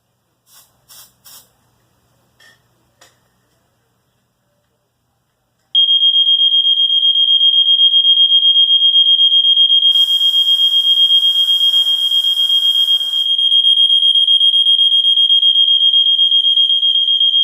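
Electronic alarm sounder going off with one continuous, loud, high-pitched tone that starts about six seconds in, after a few faint clicks. A hiss runs over it for about three seconds partway through.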